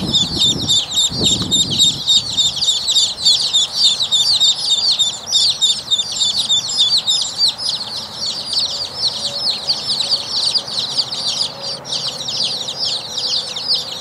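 Buff ducklings peeping nonstop, a rapid stream of short, high, falling peeps from more than one bird overlapping. A brief low rustle sounds in the first couple of seconds.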